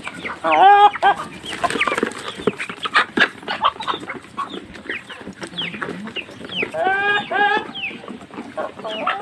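A flock of chickens clucking while feeding, short calls throughout with two longer wavering calls, one about half a second in and one about seven seconds in. Short sharp taps come between the calls.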